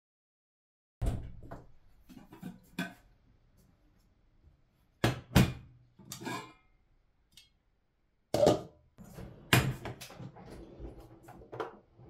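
Stainless steel pot and glass lid handled on a ceramic hob: a string of knocks and clinks starting about a second in, the loudest about five seconds in and twice between eight and ten seconds, as the lid is taken off and set down.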